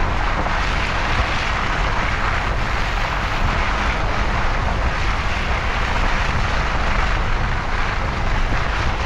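A vehicle engine running steadily, with a constant hiss over it.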